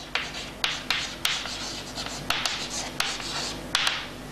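Chalk writing on a blackboard: a run of short scratching strokes and sharp taps.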